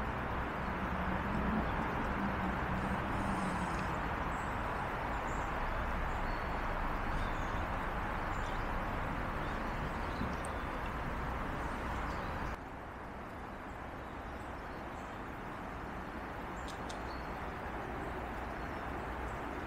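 Steady rushing of a woodland stream, with a few faint bird chirps over it. About two-thirds of the way through it cuts abruptly to a quieter stretch of the same kind of rushing water.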